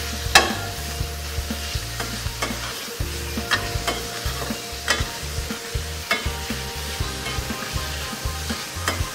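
Minced chicken and shallots sizzling in hot oil in a stainless-steel frying pan while being stir-fried, with a metal spoon scraping and clicking against the pan at irregular moments, the strongest click about half a second in.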